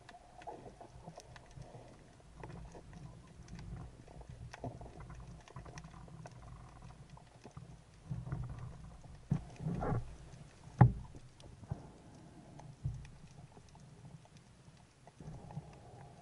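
Underwater sound picked up through a camera housing: a low water rumble with scattered faint clicks and a few louder knocks, the sharpest about eleven seconds in.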